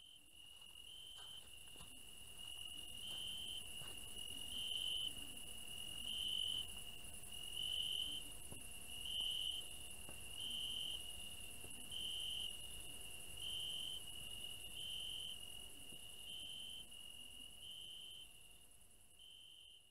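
Chorus of night crickets chirping steadily, swelling louder in regular pulses about once a second, with a fainter, higher continuous insect trill above it. It fades in at the start and fades out near the end.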